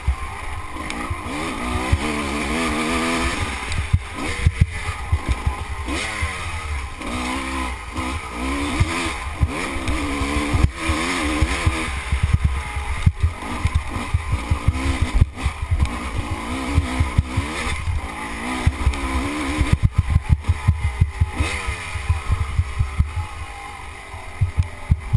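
Off-road motorcycle engine revving up and falling back again and again as the rider works the throttle and gears over rough ground. Wind buffets the microphone, and there are frequent short knocks from the jolts; the engine eases off near the end.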